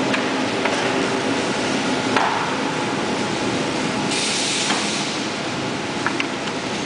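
Rotary die cutter for corrugated carton board running with a steady mechanical noise, with sharp clicks now and then and a brief hiss about four seconds in.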